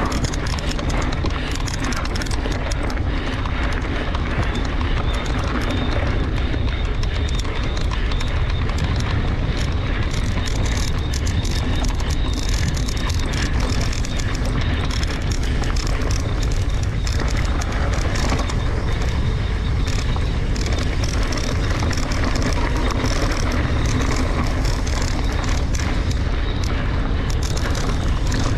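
Wind buffeting an action camera's microphone during a fast mountain-bike descent, a steady low rumble, with the tyres crackling and rattling over a loose dirt and gravel fire road.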